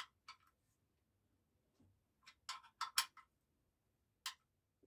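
Short clicks of an L-shaped hex key turning and reseating in the steel drain plug of a Mercedes OM646 diesel engine's oil pan as the plug is tightened: one just after the start, a quick cluster about halfway through and a single click near the end.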